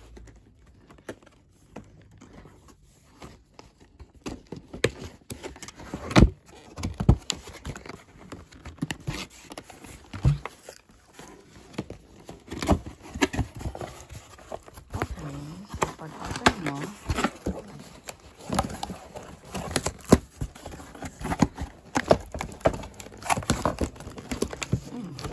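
Cardboard retail box being opened and handled by hand: irregular knocks, scrapes and rustles as the lid and an inner cardboard tray are pulled apart, with a few sharper knocks about six seconds in and again near twenty seconds.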